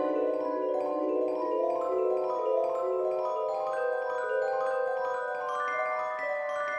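Background music: a melody of short pitched notes on a marimba-like mallet instrument, the line stepping up in pitch in the second half.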